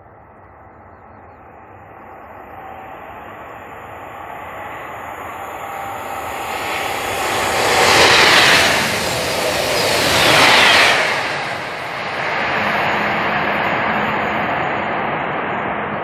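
SRT high-speed train running at about 300 km/h and passing close by: a rushing noise that swells for about eight seconds, peaks twice about two and a half seconds apart with a falling whine as it goes by, then eases to a steady rush.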